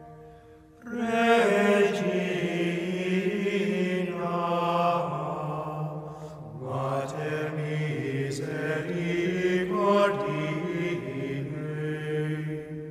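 Slow sung chant with long held notes in two phrases, starting about a second in, with a brief break in the middle, and fading out near the end.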